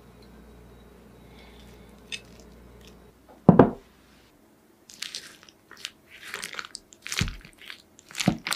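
A wooden spoon digging into the crisp, browned cheese crust of a baked macaroni gratin in a glass dish, with crunching and scraping in the last few seconds. One loud thump comes about three and a half seconds in.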